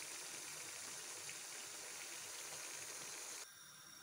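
Qeema (minced meat) with potatoes and peas cooking in a steel pot, giving a steady sizzling hiss. The sizzle drops abruptly to a fainter hiss about three and a half seconds in.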